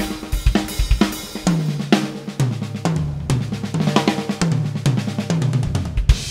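Acoustic drum kit played solo in a shuffle feel: fast bass drum and snare strokes, then about a second and a half in a run of tom fills stepping down in pitch around the kit, ending near the end with a hit whose cymbal rings on and fades.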